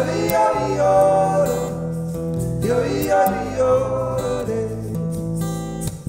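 Live acoustic trio music: strummed acoustic guitar and bass guitar under wordless singing, with gliding vocal phrases near the start and again about three seconds in.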